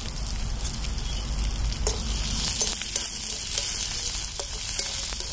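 Mixed vegetables (radish pods, brinjal and lablab bean pods) sizzling steadily in hot oil in a kadhai over a wood fire, with a few light clicks as they are stirred.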